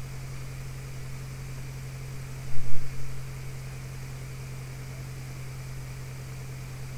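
Steady low hum under an even hiss: unattended room tone. A brief louder sound comes about two and a half seconds in.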